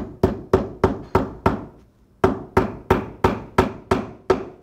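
Claw hammer driving nails through a steel belt-splice template into a wood plank, a quick run of sharp, even blows about three a second, with a short pause just under two seconds in before a second run.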